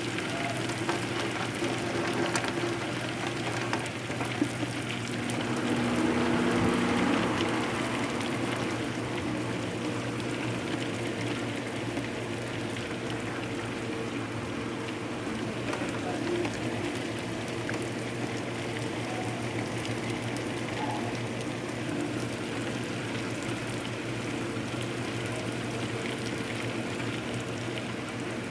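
Heavy rain pouring down steadily in a thunderstorm, with a steady low hum beneath it. The rain swells louder for a couple of seconds around the sixth second.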